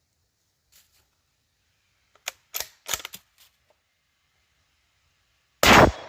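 Bolt-action 7.62×39 rifle with an 18-inch barrel: a few sharp metallic clicks as the bolt is worked to chamber a 125-grain soft-point round, then a single gunshot about five and a half seconds in, the loudest sound, with a short echo trailing off.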